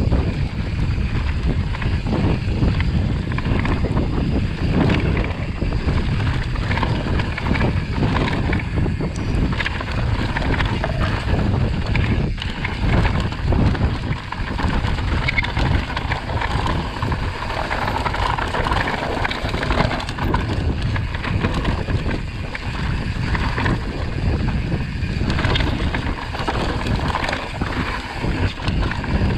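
Wind buffeting the microphone: a loud, continuous, gusting rumble with no clear engine note.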